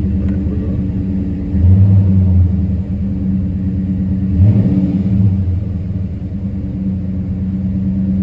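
Dodge Charger SRT8's 6.4-litre HEMI V8 idling with a cylinder 3 misfire that the owner can still feel. The engine note swells louder briefly about one and a half seconds in and again about four and a half seconds in.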